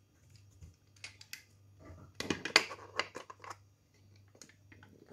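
Sharp plastic clicks and knocks from a pressure cooker lid's handle and its removable part being worked by hand. A few clicks come about a second in, then a denser run of them, the loudest about two and a half seconds in, over a faint low hum.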